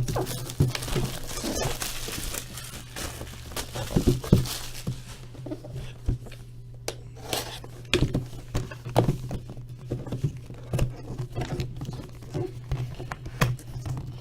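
Plastic wrap crinkling and tearing as a sealed box of trading cards is opened, followed by scattered clicks and knocks of the box and its contents being handled, over a steady low hum.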